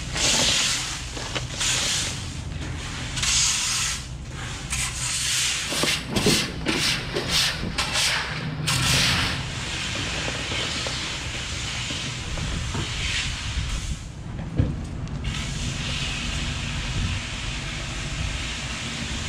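A broom sweeping wet leaves and storm debris across a muddy concrete floor: quick scratchy strokes for the first nine seconds or so, then a steadier hiss. A steady low hum runs underneath, and there is one sharp knock a little past the middle.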